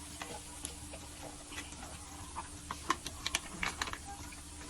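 Light, irregular clicks and taps of a utensil working pasta through sauce in a pan, coming more often in the second half, over a faint steady hum.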